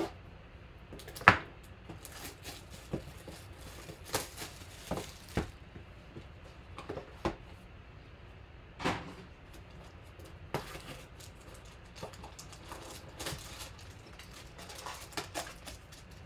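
A sealed cardboard trading-card box being opened by hand: its wrap slit with a blade, the lid lifted and foil card packs taken out, giving scattered clicks, taps and rustles. The sharpest click comes about a second in.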